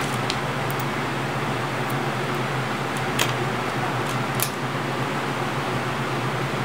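Steady background hiss with a low hum, with a few faint light clicks as scissors are handled and set down on a wooden table.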